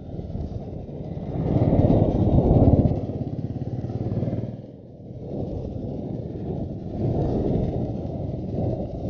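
Royal Enfield Continental GT's single-cylinder engine running while riding, mixed with wind rushing over the helmet-mounted microphone. The sound swells about two seconds in and drops away briefly around the middle.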